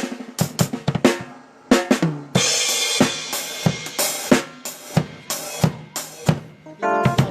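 Drum kit played in a band sound check: irregular snare, kick and hi-hat hits, with a cymbal crash about two and a half seconds in that rings on under the following hits.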